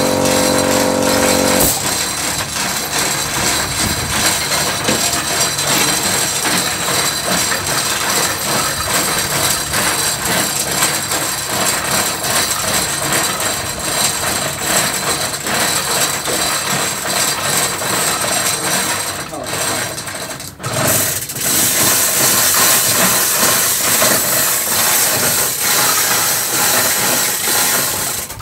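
Loud, steady machinery noise with a fast, dense rattle. A steady hum underneath stops about two seconds in, and the noise drops away briefly about twenty seconds in.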